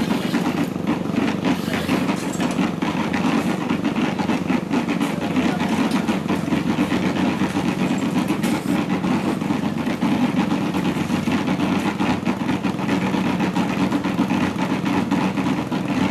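An engine running steadily without a break.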